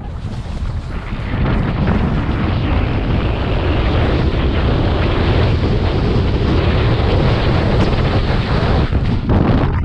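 Wind buffeting a body-mounted camera microphone as a snowboarder speeds down a steep snow inrun, mixed with the board sliding over the snow. It builds over the first second or so, then holds loud and steady.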